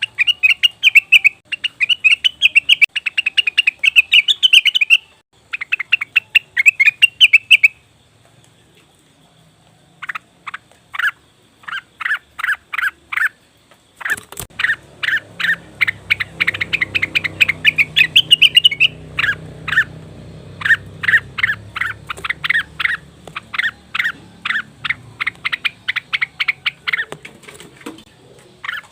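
Blue-winged leafbird (cucak wilis / rengganis) calls played as a lure recording: fast, loud chattering for the first several seconds, a short pause, then a long series of short sharp call notes repeated about two or three times a second. A faint low hum lies under the calls through the second half.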